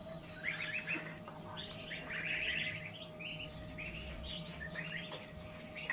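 A flock of ducklings and goslings peeping, many short high calls overlapping without a break.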